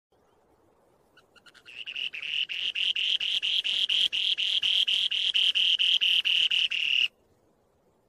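Spoon-billed sandpiper song: a rapid series of buzzy, high notes, about four or five a second. It starts with a few scattered notes about a second in, builds into a steady run, and stops abruptly about seven seconds in.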